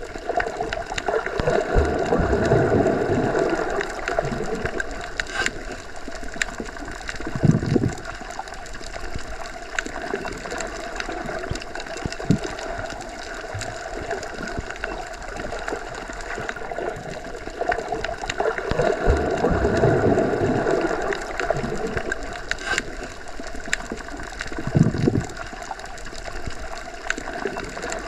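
Underwater water ambience: a continuous wash of moving water with scattered sharp clicks. It swells twice, near the start and again about two-thirds through, each swell followed by a low thud.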